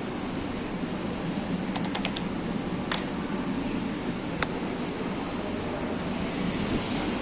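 Sogo SG-5603 56-inch industrial ceiling fan running with a steady rush of air. A quick run of sharp clicks comes about two seconds in, then a single click near three seconds and another past four seconds.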